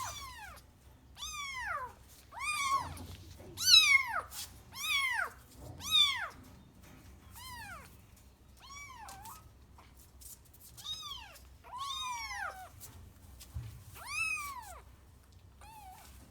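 Tiny kittens meowing over and over, high calls that rise and fall in pitch, about one a second, louder in the first six seconds and fainter after.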